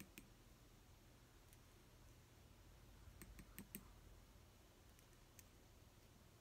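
Faint light clicks of a small measuring scoop tapping against a little cup and a mixing bowl as powder is scooped, over near-silent room tone. The clicks come singly, with a quick cluster of several a little past halfway.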